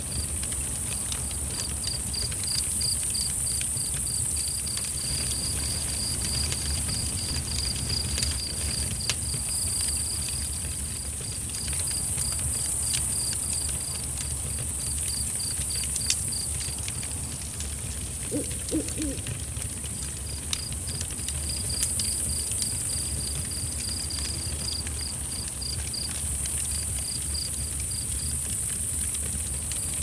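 Night ambience: a cricket chirping in a steady pulsed trill over a high insect drone, with scattered sharp clicks and a low steady rumble. An owl hoots twice, briefly, a little past halfway.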